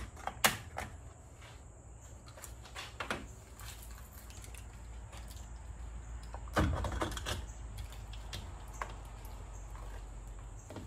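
A few scattered sharp clicks and handling rattles, with a cluster of them about six and a half seconds in, over a low steady hum: a new bottle of motor oil being opened.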